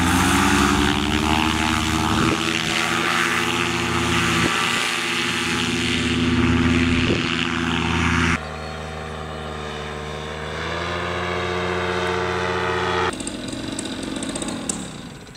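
Paramotor's Nitro 200 two-stroke engine and propeller running at full power for takeoff and climb: a steady pitched drone that climbs in pitch over the first couple of seconds and then holds. About 8 seconds in it drops suddenly to a quieter, more distant drone as the paramotor climbs away.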